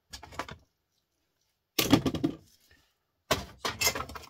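Small scrap electric motors and transformers clattering together as they are handled and sorted on a metal-strewn workbench, in three short bursts, the middle one loudest.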